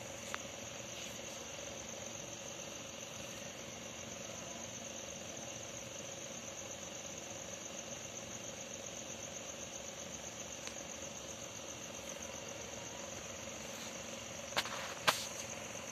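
Crickets trilling steadily at a high pitch, over a steady faint hum. Two sharp clicks about half a second apart near the end.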